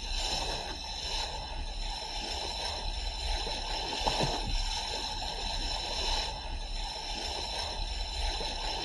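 Sea water rushing and splashing along the hull as a moving boat's bow cuts through the waves, over a steady low rumble.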